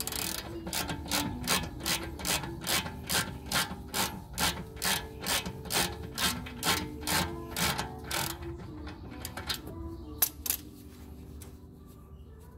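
Hand ratchet wrench clicking in steady strokes, about two or three a second, as it turns out a brake caliper bolt. The ratcheting stops after about eight seconds, and one sharp click follows a little later.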